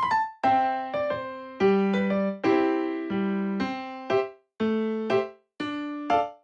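Background keyboard music: a slow tune of struck notes and chords, each one fading away, about one to two a second.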